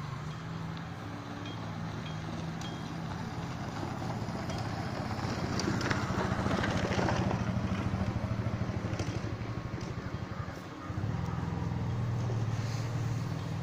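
Vehicle engine running, with road noise from driving on a rough mountain road; the noise grows louder and rougher around six to seven seconds in, and the engine briefly drops away near the end before picking up again.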